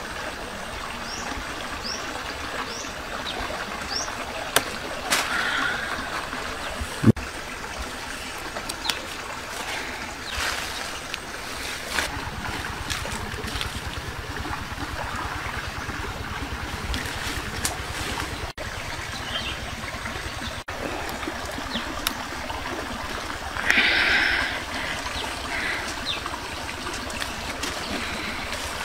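A creek trickling steadily, with scattered rustles and snaps of leaves and stems as the vegetation is handled. A few short rising chirps come in the first few seconds, and a brief louder noise stands out about five seconds before the end.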